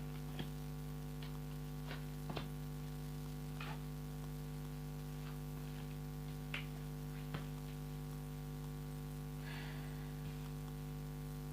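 Scattered light clicks and taps of tarot cards being handled and laid down, about eight in all with a brief soft rustle near the end, over a steady electrical mains hum.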